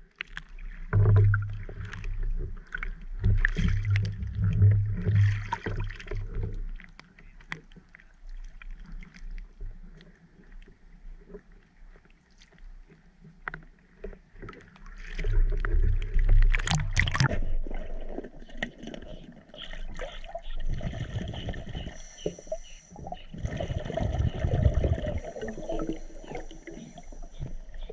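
Water sloshing and wind buffeting against a camera held at the water's surface, in uneven rumbling swells. Near the end the sound turns muffled, with steady high tones, as the camera goes underwater.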